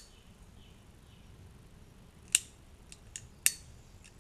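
Silky Pocket Boy folding saw clicking as its blade is swung and locked into position: two sharp clicks about a second apart, with a few fainter ticks between.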